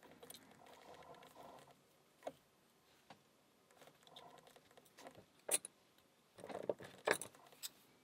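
Faint handling of small metal padlock parts in the fingers: a soft rustle, then a scatter of light metallic clicks and taps, the sharpest about two-thirds of the way through and a quick cluster near the end.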